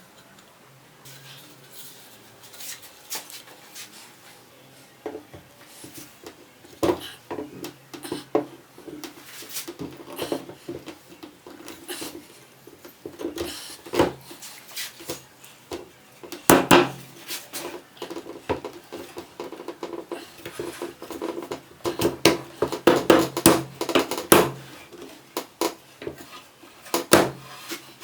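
Irregular knocks, clinks and scrapes of hands-on work on a chair: tools and parts being handled, tapped and set down, busiest in the second half.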